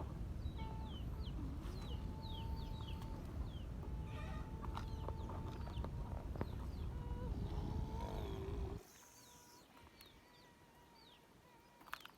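A steady low rumble with a thin steady whine over it and repeated short, high, falling chirps from small birds. The rumble cuts off suddenly near the end, leaving the whine.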